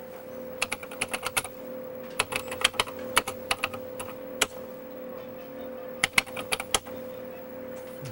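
Typing on a computer terminal keyboard: a few quick runs of key clicks with single keystrokes between them, over a steady hum.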